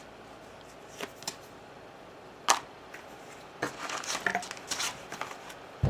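Cosmetic product packaging being handled: a few sharp clicks and taps, the loudest about two and a half seconds in, and a stretch of crinkling rustle from about three and a half to five seconds in.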